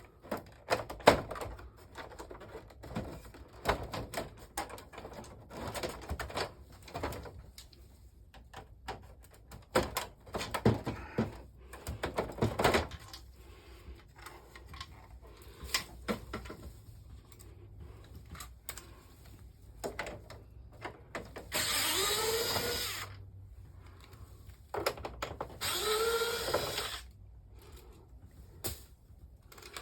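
Parts of a Panasonic CS-J227C wall-mounted air conditioner being handled and removed, with scattered plastic clicks and knocks. Twice in the latter part a cordless power driver runs for about a second and a half each time, its whine shifting in pitch.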